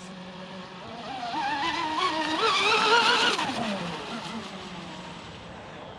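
Oxidean Marine Animal Twin Cat, an electric RC catamaran running three-blade propellers on an 8S battery, passing at speed. Its motor and propeller whine wavers, climbs in pitch and loudness over the first three seconds, then falls away and fades.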